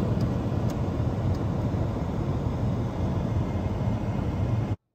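Fighter jets flying overhead in formation: a steady, deep jet rumble that cuts off suddenly near the end.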